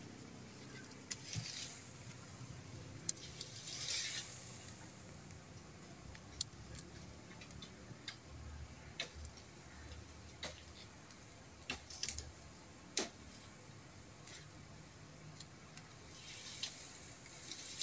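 Charcoal and wood fire crackling under a green bamboo tube of frog meat cooking pansuh-style, with sparse, irregular sharp pops over a faint low rumble. The tube's contents are coming to the boil.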